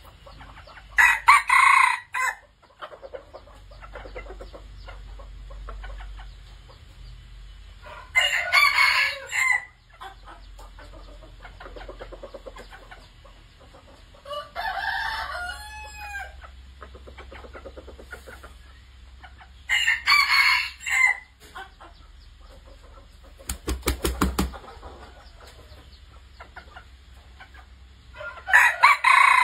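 Red junglefowl rooster of the white-eared form crowing repeatedly: short, clipped crows of a little over a second, about every six or seven seconds, one near the middle fainter and more gliding. A brief rattle of rapid sharp taps sounds between the last two crows.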